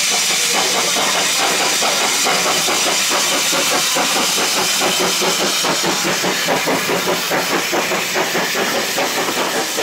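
Hunslet 0-6-0 saddle-tank steam locomotive working past close by, with a quick, even exhaust beat over a steady hiss of steam. Near the end its coaches roll past.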